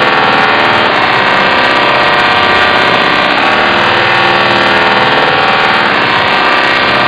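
A voice put through the Voice Changer Plus 'Robot 2' vocoder effect and slowed to half speed, heard as a loud, steady robotic tone with no words that can be made out. Its pitch holds flat and changes about a second in, again past three seconds, and once more near six seconds.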